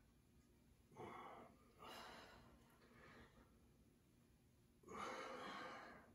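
Faint breathing of people pressing kettlebells overhead: four soft exhales about a second apart, the last one longer and a little louder, near the end.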